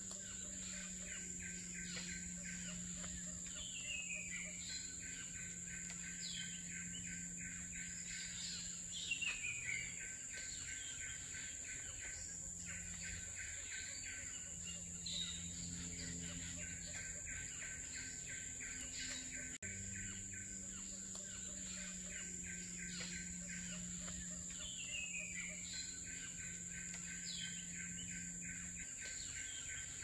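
Tropical forest ambience: a steady high-pitched insect drone and a fast pulsing trill, with short falling bird whistles every few seconds and a low steady hum underneath.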